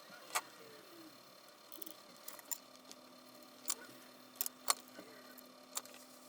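Scattered small, sharp clicks and taps at irregular intervals, about nine in all, from hand tools and parts being handled while soldering components onto a circuit board, over a faint steady hum that starts partway through.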